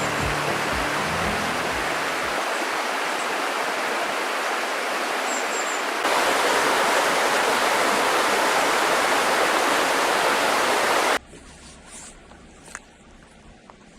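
River water rushing over rocks in a steady, even rush: the Kiyotaki River. It steps louder about six seconds in, then drops suddenly to a much quieter background near the end.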